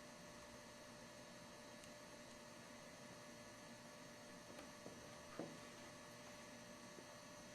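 Near silence with a faint steady electrical hum, and a couple of faint small clicks about five seconds in.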